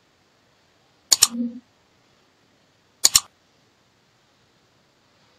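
Computer mouse click sound effects from an animated like-and-subscribe button: two quick double-clicks, about two seconds apart. The first is followed by a short low hum. Between them there is near silence.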